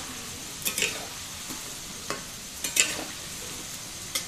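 Potato strips deep-frying in hot oil in a wok, a steady sizzle, as a metal spatula stirs them and clicks and scrapes against the pan a few times, loudest just before the three-second mark. These are cooled, once-fried potatoes on their second fry to make them crisp.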